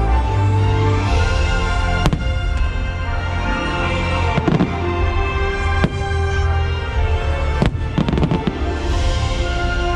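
Aerial firework shells bursting with sharp bangs, one about two seconds in, others around four and a half and six seconds, and a quick cluster near eight seconds, over loud, continuous show music.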